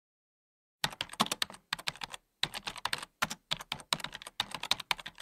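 Keyboard typing: quick key clicks in short runs broken by brief pauses, starting about a second in.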